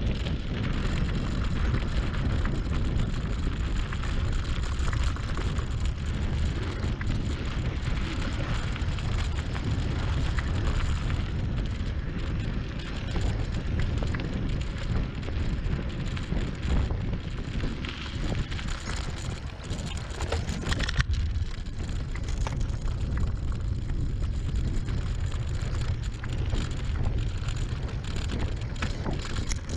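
Bicycle riding over gravel and dirt at about 20 km/h: wind buffeting the handlebar camera's microphone, with a steady crackle of tyres on loose ground.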